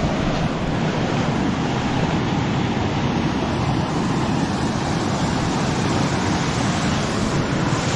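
Wind buffeting the microphone outdoors, a steady rushing noise with a fluttering low rumble.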